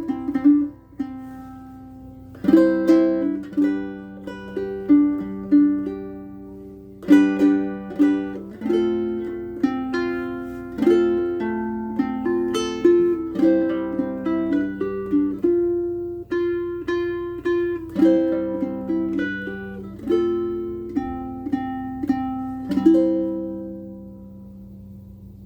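Bruko short-scale baritone ukulele strung with all-unwound PHD low-G gCEA strings, playing a plucked melody with chords. It pauses briefly twice, and the last chord rings out and fades near the end.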